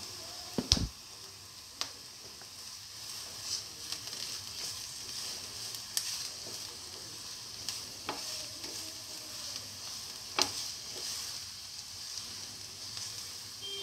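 Sliced onions sizzling in hot oil in a frying pan. A spatula stirs them, with a few sharp clicks where it knocks against the pan.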